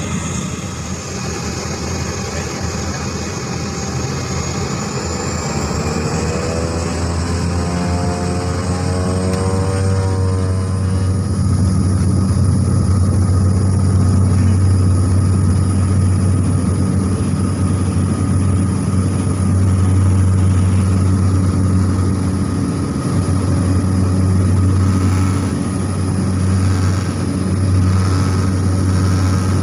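A small propeller airplane's engine and propeller, heard from inside the cabin, powering up for takeoff. A high whine rises over a steady low drone, growing louder over the first ten seconds or so, then holding at full power through the takeoff roll.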